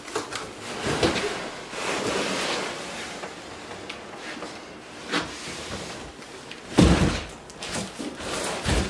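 Large cardboard box holding a miter saw scraping and rustling as it is slid off a wooden workbench, with a few knocks, then set down on the floor with a deep thud about seven seconds in, the loudest sound.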